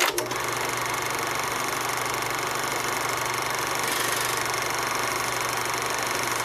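Film projector running sound effect: a steady rapid mechanical clatter over hiss and a low hum, starting with a sharp click.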